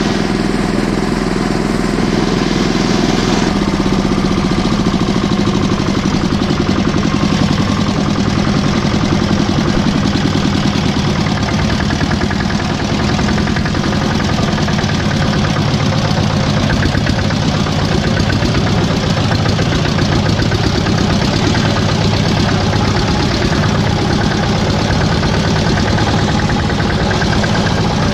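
Small engine of an articulated mini tractor running steadily at low road speed, a fast, even clatter that does not let up.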